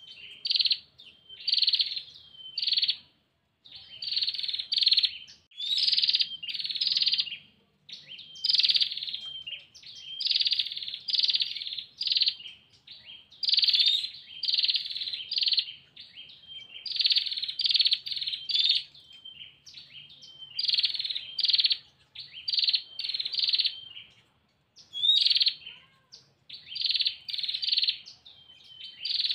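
Female prinia (prenjak) repeating its fast, buzzy trilling call in short bursts of three or four notes with brief pauses between groups: the call a female gives to summon a male.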